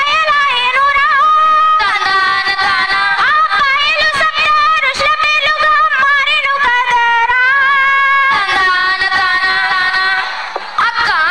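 Girls' voices singing a Telugu burra katha song into microphones, in long held notes with vibrato, over percussion beats. The singing dips briefly near the end and then starts again.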